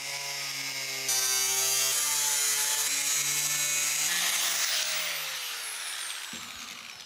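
DeWalt angle grinder with a cut-off disc cutting through a car's steel body panel. The motor's whine is joined about a second in by a loud high hiss as the disc bites the metal. From about five seconds the grinder is switched off and spins down with a falling whine.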